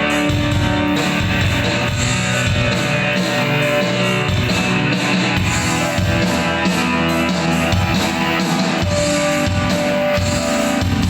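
Band rehearsing a song, with guitar strumming out front.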